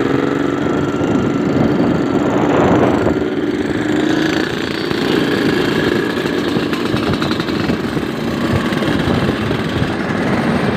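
Yamaha RX-King two-stroke single-cylinder motorcycle engine running, its pitch wavering up and down over the first few seconds and then holding steadier.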